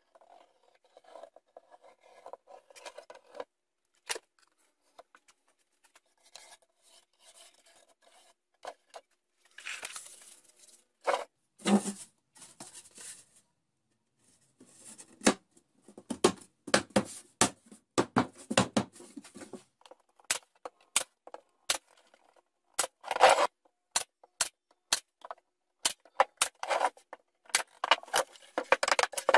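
Wood glue squeezed from a plastic bottle onto plywood edges with a rasping sputter, then plywood panels scraped and knocked as they are set in place. In the second half, a run of sharp clicks about two a second among more scraping.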